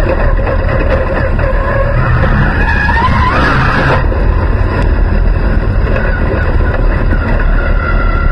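Dirt late model race car's V8 engine heard from inside the cockpit, running loud at rolling speed. Its pitch rises about three seconds in as the car accelerates, then holds steady.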